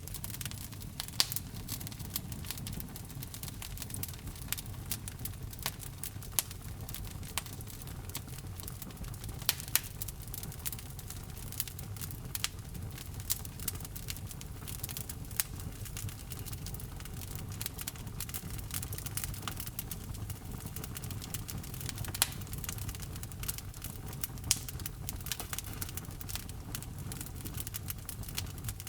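Wood fire crackling in a fireplace: frequent sharp pops and snaps over a low, steady rumble of the flames.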